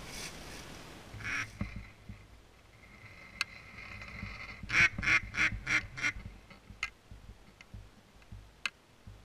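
Duck quacking: a couple of single quacks, then a quick, evenly spaced run of about six loud quacks a little past halfway.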